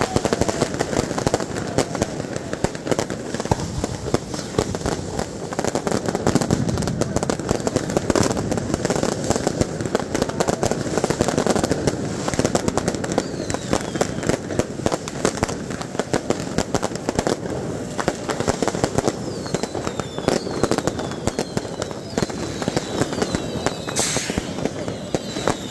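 Dense barrage of fireworks and firecrackers going off: rapid, continuous bangs and crackling over the noise of a large crowd. Falling whistles come in the second half, and a short, loud hiss comes near the end.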